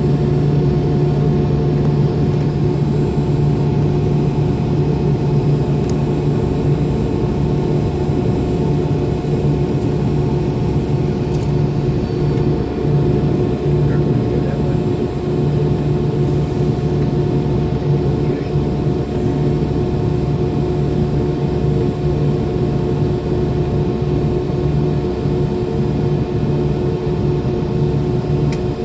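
MD-90's rear-mounted IAE V2500 turbofan engines running steadily at low power, heard inside the cabin close to the engines: a steady hum with a few held tones over a low rumble.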